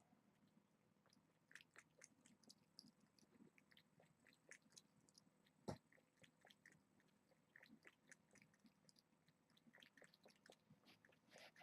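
Faint, scattered small clicks and scratches from kittens moving about, with one louder knock about six seconds in.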